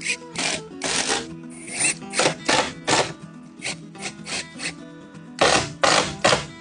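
Short rubbing or scraping strokes of a hand tool worked across wood, roughly two to three a second and irregular, over background music.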